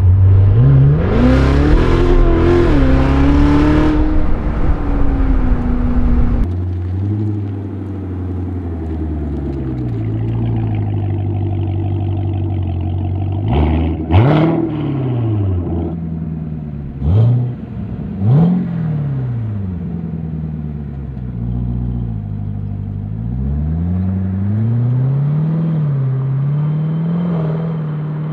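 Chevrolet Corvette C7 Z06's supercharged 6.2-litre V8 through a 3.5-inch straight-pipe valved exhaust. The engine pulls hard with rising revs at the start, then runs lower with the revs falling and rising. It gives three sharp throttle blips in the middle and climbs again near the end.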